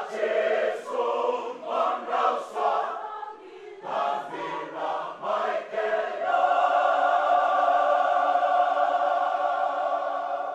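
Fijian church choir of mixed women's and men's voices singing in Fijian, ending the song on one held chord of about four seconds that then stops.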